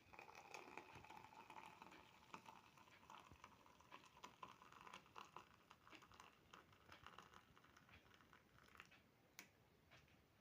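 Near silence, with faint scattered clicks and rustles of small objects being handled.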